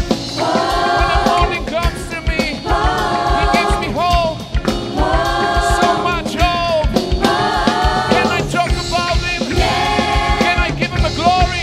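Gospel choir singing with band accompaniment over a steady drum beat, in short repeated phrases.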